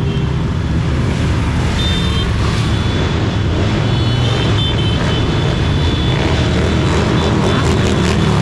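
Engines of a procession of motorcycles and scooters riding past one after another, a steady, dense low rumble of many bikes at once.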